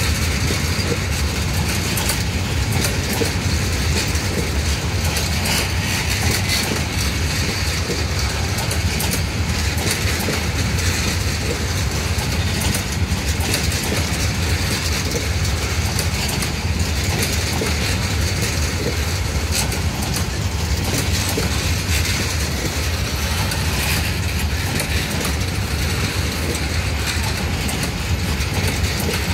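Green-and-red passenger coaches of a train rolling slowly past on the rails: a steady low rumble of wheels on track with scattered faint clicks.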